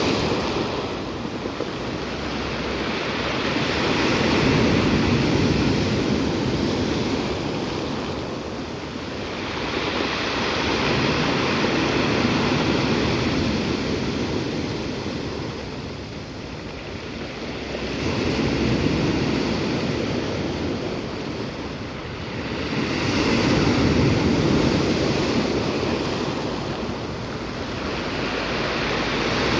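Black Sea surf washing onto the shore in a steady wash of noise that swells and eases with each wave, about every six to seven seconds.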